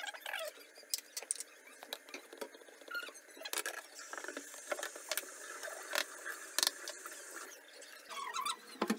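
Metal box grater scraping and knocking on a wooden cutting board, with many short clicks and scratchy rasps as it is handled. Near the end, hands squeeze wet grated vegetable in a plastic bowl.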